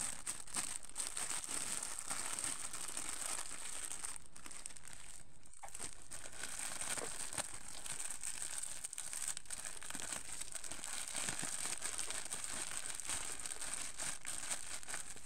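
Clear plastic packaging crinkling and rustling as it is handled: a dense, continuous run of small crackles.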